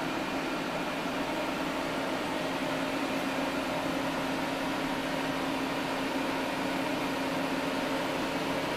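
Steady mechanical hum and whir of a Doosan DBC-130L-II CNC horizontal boring mill standing powered up, with a low steady tone that grows a little stronger a few seconds in.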